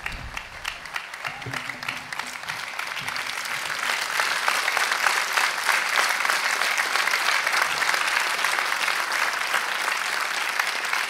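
Large audience applauding, swelling over the first few seconds and then holding steady.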